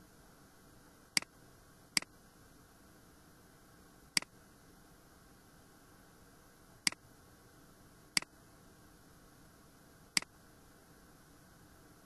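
Computer mouse button clicking six times at uneven intervals, each click a quick press-and-release double tick, over a faint steady hiss.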